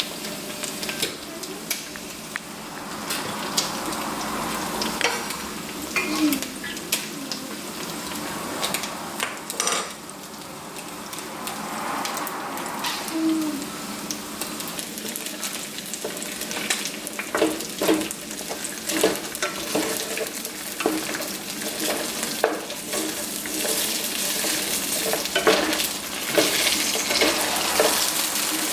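Pork pieces frying in their own rendered fat in a skillet, a steady sizzle. Over it come repeated knocks and clinks of kitchen utensils, more frequent in the second half, as the meat is stirred with a wooden spatula.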